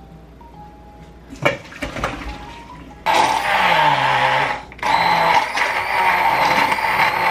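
Handheld immersion blender switched on about three seconds in, whirring loudly as it blends liquid in a tall beaker; it cuts out briefly near the five-second mark and then starts again.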